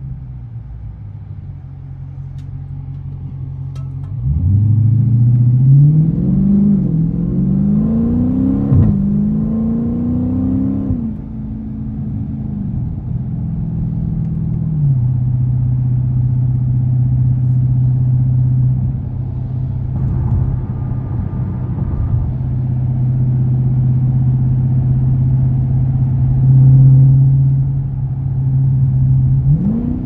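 Dodge Scat Pack's 6.4-litre HEMI V8, heard from inside the cabin, pulling hard from low speed about four seconds in: the engine note climbs and falls back three times as it shifts up. It then settles into a steady low drone at cruising speed, and starts to climb again near the end.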